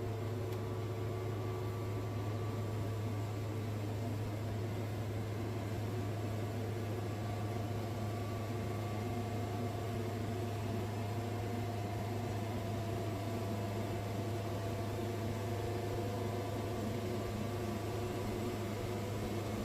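Wood-Mizer portable band sawmill running steadily as its band blade saws a board from a cypress log: an even, low engine hum with a few higher steady tones over it.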